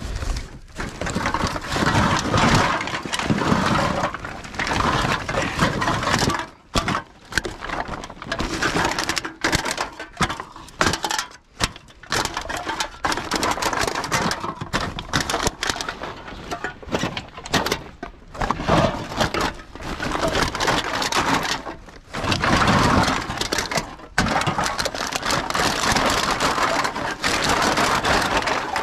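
Empty aluminium drink cans and plastic bottles clattering and crackling as they are scooped by hand out of a woven plastic sack and dropped into a cardboard box, in irregular bursts with short pauses.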